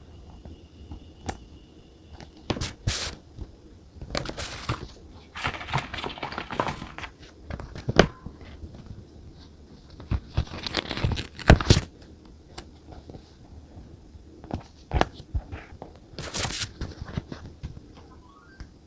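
Paper and stickers being handled at a desk while journaling: irregular crinkling and rustling, short tearing or peeling sounds, and sharp taps and clicks, the loudest about eight seconds in and again around eleven to twelve seconds.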